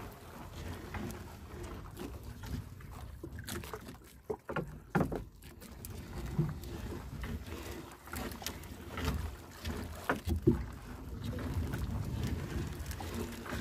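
A small wooden fishing boat rocking on a choppy sea, with water sloshing against the hull and wind on the microphone. Scattered knocks and clicks come through, mostly about four seconds in and again near ten seconds.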